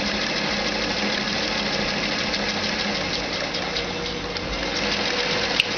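Electric household sewing machine running steadily, stitching through gathered nylon fabric, with a fast fine ticking over its motor hum. A single sharp click near the end.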